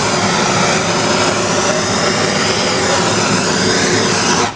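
Blowtorch flame burning steadily with a loud, even rushing noise as it dries a freshly attached clay teapot handle. The flame cuts off abruptly near the end.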